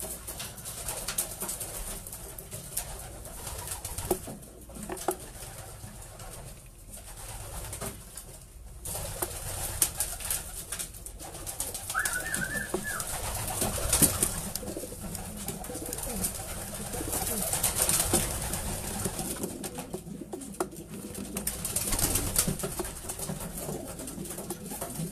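Racing pigeons cooing in their loft, with scattered clicks and knocks and one short high chirp about halfway through.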